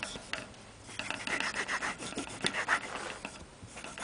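A strip of soft cloth rubbed quickly back and forth against a clarinet body and around its metal key posts. A few light ticks come first, then about two seconds of rapid rubbing strokes. This is the ragging that cleans buffing dirt off the posts and body.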